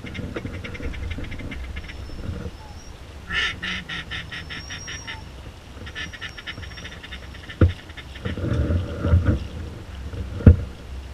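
Duck quacking and chattering in runs of quick notes, with a thin high whistle. The calling is loudest a few seconds in and again in the middle. Two sharp thumps come late on, the second one the loudest sound.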